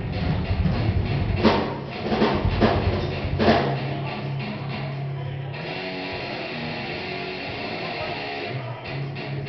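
Rock band playing a sound check: electric guitar and drum kit, with a few hard drum hits in the first four seconds. Just past halfway, a held distorted guitar chord rings on steadily for about three seconds.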